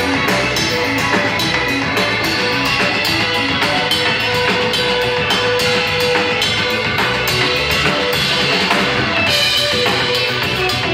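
Live band playing a jazzy number on electric guitar and drum kit, busy cymbal work over the guitars, with one note held for a couple of seconds mid-way.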